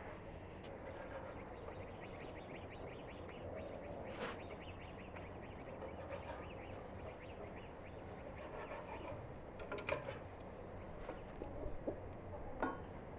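Knife cutting raw beef on a wooden cutting board: fine scraping ticks, with a few sharper knocks on the board, the loudest near the end.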